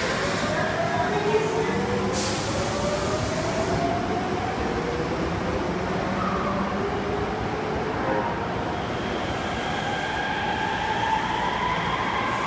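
Osaka subway 66 series electric train running through the station with steady rail rumble, its traction-motor whine climbing slowly in pitch as it gathers speed.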